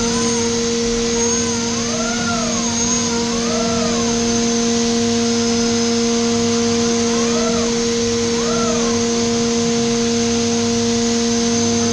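Haas 5-axis trunnion mill back-chamfering with a 3 mm lollipop cutter: the spindle holds a steady high whine over a steady hiss, while the axis drives whine up and back down in pitch in repeated swoops as the tool works around the part. The swoops come about once a second, stop for a few seconds partway through, then return.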